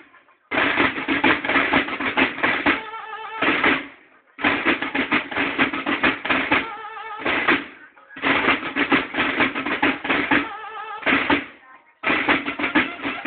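Banda de guerra playing: a line of field drums beating fast cadences in three phrases of about three to four seconds, with short pauses between them, and bugles sounding held notes near the end of each phrase.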